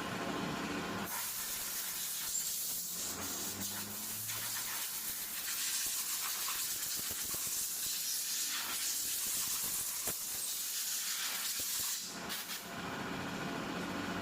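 A long, steady hiss of rushing air or spray starts about a second in, dips briefly a few times, and cuts off sharply near the end.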